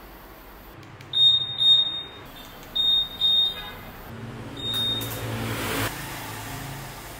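Electronic beeps from a Honda ADV 160 scooter's buzzer: two short high beeps, another pair about two seconds later, then a single fainter one. After the beeps comes a low hum under a rising hiss that cuts off suddenly.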